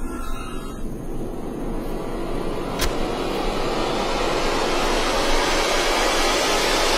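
A rushing noise that slowly swells louder, with one sharp click about three seconds in.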